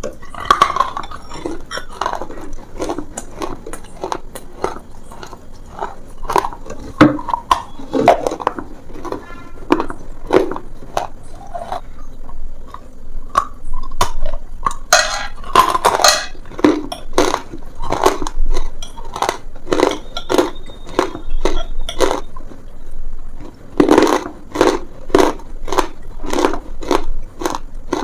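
Repeated sharp crunches of a crumbly paste being crushed, irregular at first, a quick flurry about halfway through, then settling into about two crunches a second near the end.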